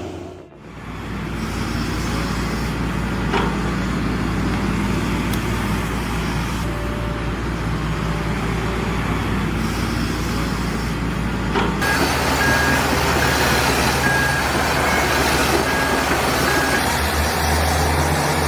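Heavy diesel construction machinery running steadily. After a sudden change about halfway through, a reversing alarm beeps at an even pace for several seconds over the engine noise.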